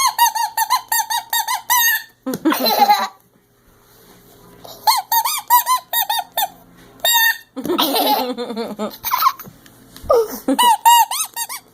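Toy horn squeaking in quick runs of short, high, pitched squeaks, about six a second, with two harsher, rougher blasts between the runs.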